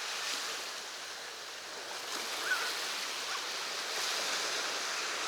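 Sea surf washing onto a sandy beach: a steady hiss of small waves that eases slightly, then swells again near the end.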